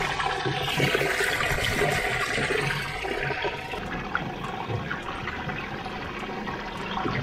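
Seawater rushing and churning in a boat's livewell as the pump feeds water into the well of live bait fish. The rush is strongest in the first few seconds, with a few light handling clicks.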